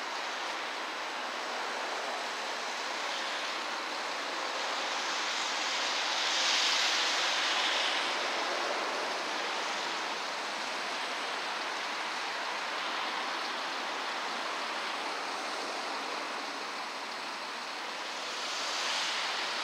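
Steady rushing outdoor noise with no distinct mechanical sound in it, swelling about six seconds in and again near the end.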